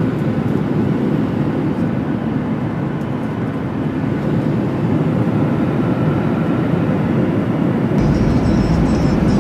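Jet airliner's engines and rolling noise heard inside the cabin as the plane moves along the ground, a steady loud noise. About eight seconds in, the sound changes abruptly and a deeper rumble comes in.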